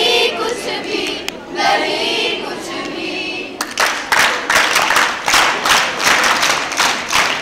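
A group of young voices singing together. About halfway through, steady rhythmic hand-clapping starts and carries on with the voices.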